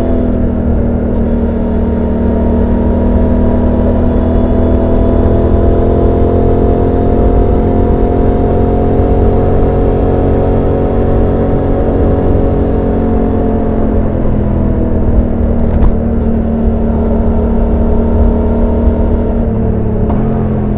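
Suzuki GSX-8S's 776 cc parallel-twin engine heard on board while riding at moderate revs, the pitch climbing slowly, then easing off about two thirds of the way through and dropping again near the end. A single short click sounds a little before the end.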